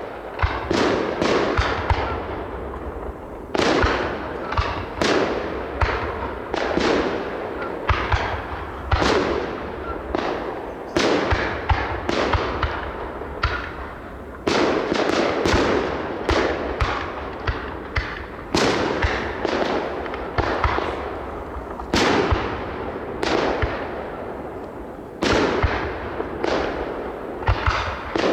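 Fireworks display: aerial shells bursting one after another, sharp bangs about once or twice a second, each trailing off in a crackle and rumble.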